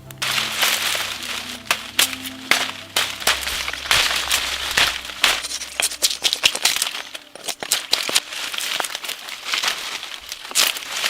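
Dense, irregular crackling and crunching with many sharp snaps, as of dry brittle material being handled. Soft background music with low notes runs under it and stops about six and a half seconds in.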